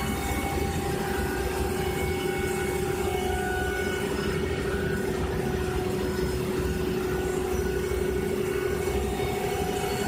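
CNC router spindle running steadily as it surfaces (planes) the MDF spoilboard: one constant tone with a low rumble beneath.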